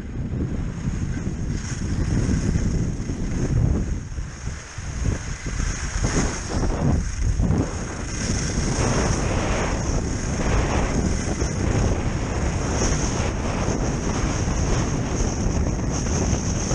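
Wind buffeting the microphone of a camera carried by a kite skier moving at speed: a loud low rumble that rises and falls in gusts, easing briefly around four to seven seconds in.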